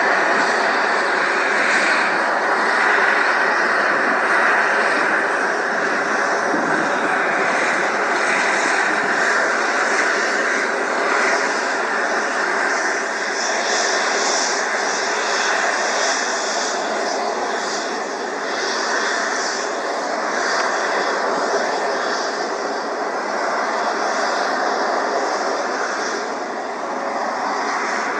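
A fixed-wing aircraft's engine running, heard as a steady, even rush of noise that eases slightly in the second half.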